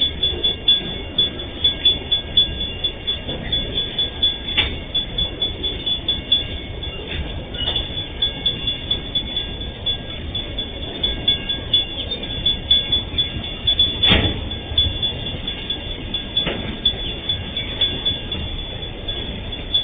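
Freight train of open-top steel gondola wagons rolling past, its wheels clattering in a quick rhythm with a low rumble and occasional sharp metallic clanks, the loudest about 14 seconds in. A level-crossing warning bell rings steadily over it.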